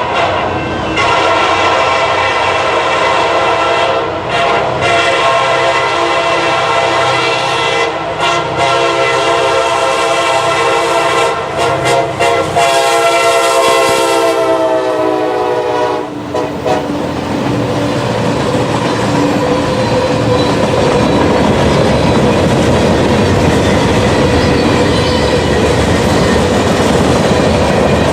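Horn of a CSX freight train led by rebuilt SD70MAC locomotives, blown in long blasts with short breaks. Its pitch drops between about 12 and 16 seconds in as the locomotives pass. After that come the steady rolling noise and clickety-clack of the freight cars going by.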